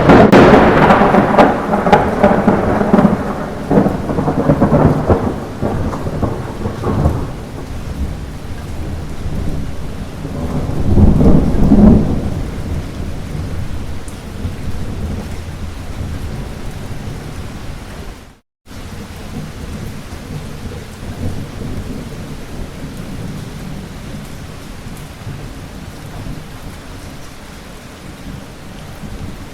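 Light rain falling steadily with thunder: a loud clap right at the start rolls into a rumble lasting several seconds, and a second rumble swells and fades about eleven seconds in, leaving the rain alone. The sound cuts out completely for a split second a little past halfway.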